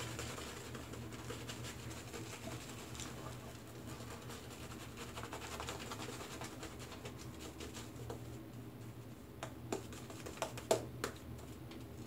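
Shaving brush swirling and brushing lather over the face and beard, a soft, continuous scratchy rustle. A few sharper ticks come through about ten seconds in.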